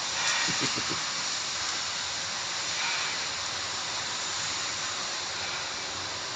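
A steady, even hiss of noise, with a few faint low murmurs in the first second.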